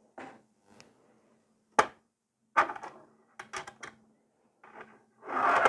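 Small clicks and knocks from handling nail-art things on a desk: the gel polish bottle being capped and plastic nail tips being taken off and put on a display holder. A sharp click comes about two seconds in, a quick run of small knocks follows, and a short rub comes near the end.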